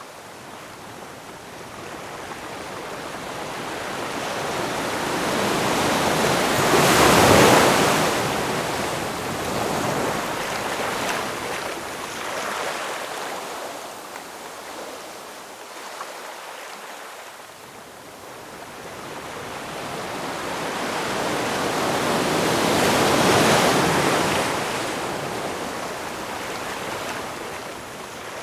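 Ocean waves washing onto a shore: two slow swells of surf, the first cresting about a quarter of the way in and the second about four-fifths in, each ebbing away into a softer hiss.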